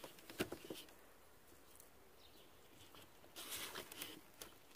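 Cornstarch-and-water paste (oobleck) being squeezed and kneaded by hand in a plastic bowl: faint soft squishing, with a few small clicks about half a second in and a short rustling stretch about three and a half seconds in.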